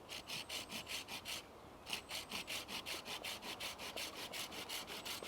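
Hand saw cutting through wood in quick, even strokes, about five a second, with a brief pause about a second and a half in before the sawing resumes.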